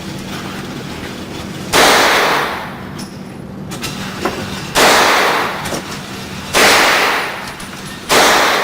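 Heckler & Koch MP5 9mm submachine gun firing four times, a second or more apart, each shot followed by a short echoing tail in the enclosed range.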